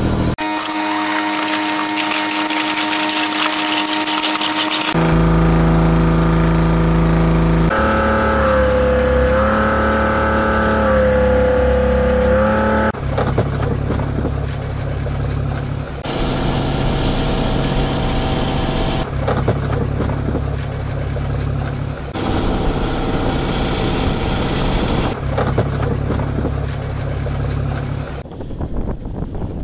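A fishing boat's engine running, heard in a string of short clips that change abruptly every few seconds. In one stretch a higher wavering whine sits over the engine.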